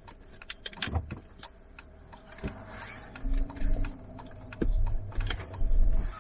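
Vehicle being driven over a rough road, heard from inside the cab: scattered clicks and rattles, then heavy low thumps from about three seconds in.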